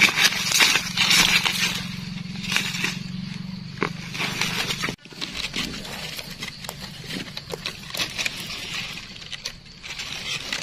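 Hand-digging in soil: repeated scrapes and crackles, with a low steady hum underneath that cuts off abruptly about halfway through.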